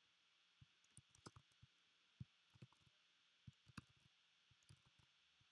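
Faint, irregular clicks of typing on a computer keyboard, a dozen or so keystrokes spread unevenly.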